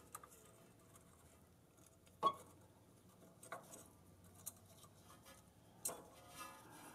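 A few faint, short clicks and taps as the spring-loaded nylon cover of a boost recirculation valve is pulled off by hand, the sharpest about two seconds in and another near six seconds.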